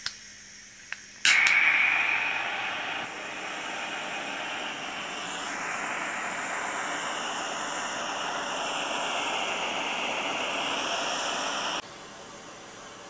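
Butane soldering iron being lit: a click about a second in, then a steady hiss of gas feeding the flame, loudest as it catches. The hiss cuts off abruptly near the end.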